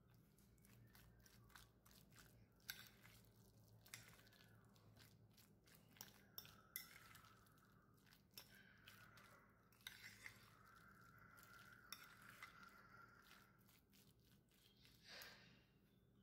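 Faint clicks and scrapes of a metal fork against a bowl as it stirs and mashes a thick egg salad, irregular through most of the stretch.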